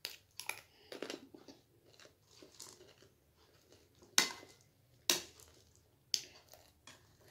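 A person chewing a mouthful of chatpate, a spicy puffed-rice snack, with irregular crisp crunches. The loudest crunches come about four, five and six seconds in.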